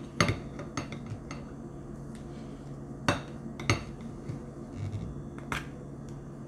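Metal sardine tin clinking and tapping against a ceramic plate as it is turned over and its pull-tab ring lifted: scattered sharp clicks and light knocks, the loudest about three seconds in.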